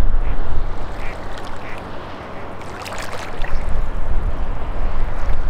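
Wind buffeting the microphone, easing briefly a couple of seconds in, with a few short calls early on and a quick cluster of sharp clicks near the middle.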